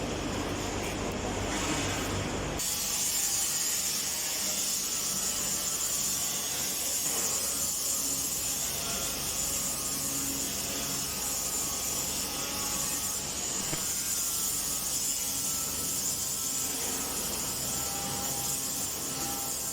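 Power grinder fitted with a sanding disc, running and sanding: a steady high whine over a rasping abrasive noise. The sound changes to this whine about two and a half seconds in.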